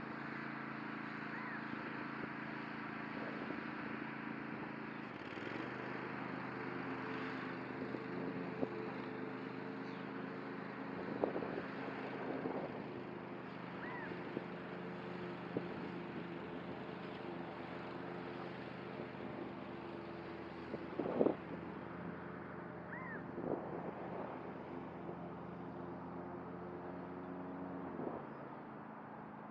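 Cub Cadet ZTS1 zero-turn mower's engine running steadily at a distance as it mows tall grass and weeds; the hum drops a little near the end.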